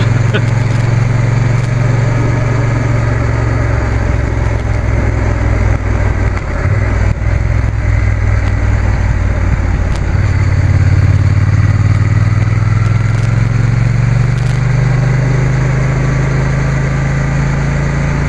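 Triumph Bonneville T120 parallel-twin engine running at road speed under the rider, with a steady rush of wind and road noise over it. The engine note dips briefly about six to seven seconds in, then pulls louder again.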